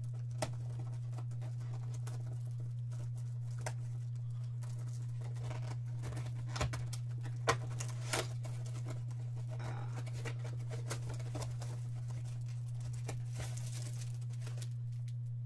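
Foil-wrapped trading card packs and their cardboard box being handled: scattered crinkling and rustling, with a few sharper clicks a little past the middle, over a steady low hum.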